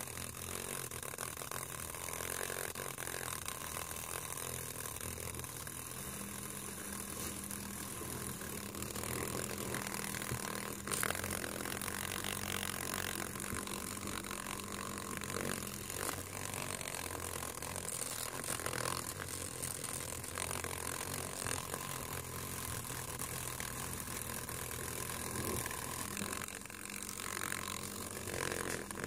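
Steady low mechanical hum with a background hiss.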